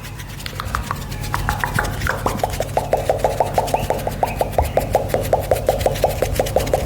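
Rapid, even tongue clicking, about seven clicks a second, starting a little over a second in, over a faint scratchy rubbing close to the microphone.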